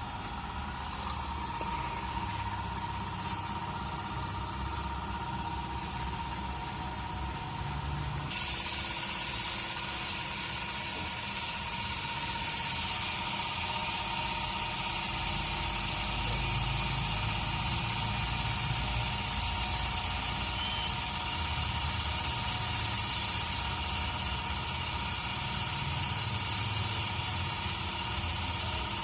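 Compressed-air paint spray gun hissing as it sprays a car hood, cutting in abruptly about eight seconds in and running on in long passes. A low rumble and a faint steady tone run underneath.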